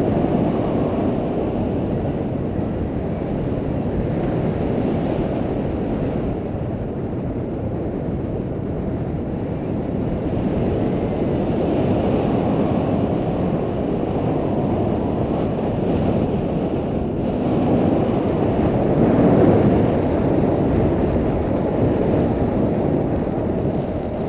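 Wind noise on an action camera's microphone from the airflow of a paraglider in flight: a loud, low rush with no pitch, swelling a little about halfway through and again near the end.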